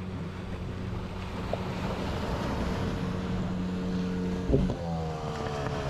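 A boat's motor running steadily over surf and wind on the microphone, with a brief loud thump about four and a half seconds in; after that the motor's pitch slides down as it throttles back.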